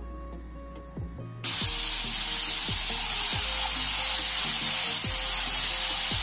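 Raw bacon strips sizzling loudly in a hot, dry frying pan, the hiss starting suddenly about a second and a half in as the bacon hits the pan.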